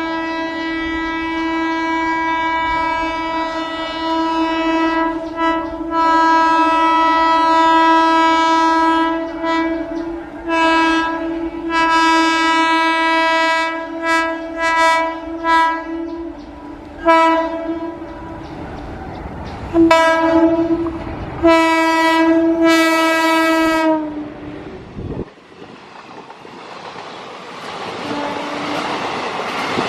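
Indian Railways WAP-5 electric locomotive's horn. It sounds long blasts for the first several seconds, then a run of short honks, and stops about 25 seconds in. The rising rumble and clatter of the train running over the track follows near the end.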